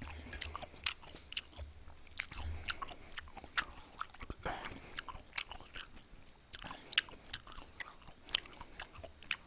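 Close-up wet chewing and biting of juicy hallabong citrus segments: irregular smacking mouth clicks, several a second.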